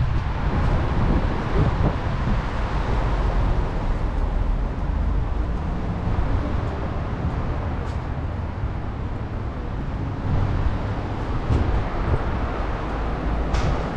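City street traffic noise: a steady low rumble of passing cars, with no single event standing out.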